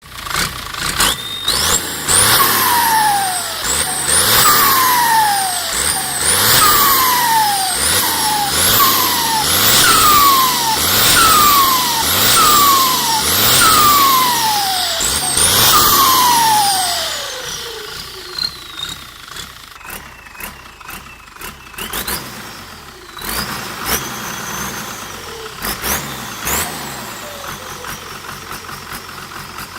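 Turbocharged diesel engine fitted with an AR42 turbo, blipped over and over: each rev brings a turbo whistle that climbs high and then falls away, about one every second and a half. After about seventeen seconds the engine settles to a quieter idle. One more whine rises midway through the idle and slowly dies away.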